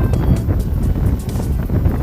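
Background music under wind buffeting the microphone in an uneven low rumble.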